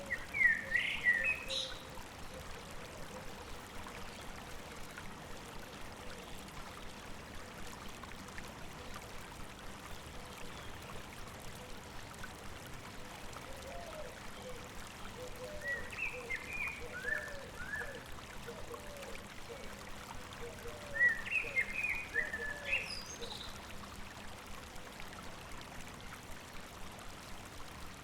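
A river or stream babbling steadily, with short songbird phrases near the start, twice in the second half and again at the very end. A run of lower repeated notes sits beneath the later bird phrases.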